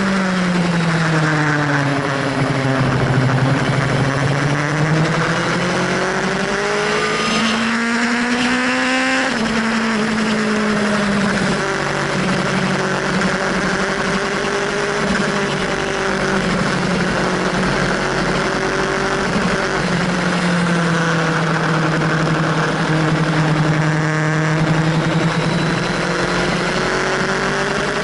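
Sport motorcycle engine heard from on board at track speed, over steady wind rush. Its note falls for the first couple of seconds, then climbs steadily under acceleration for about six seconds. It drops suddenly at a gear change about nine seconds in, then holds fairly level with small rises and dips for the rest.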